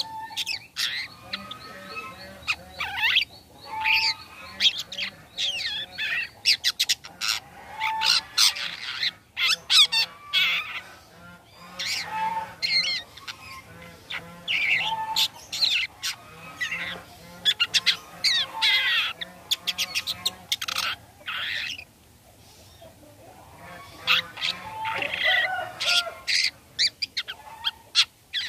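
Long-tailed shrike singing: rapid runs of sharp, harsh call notes mixed with chattering, varied phrases, with a brief lull about three-quarters of the way through before the song resumes.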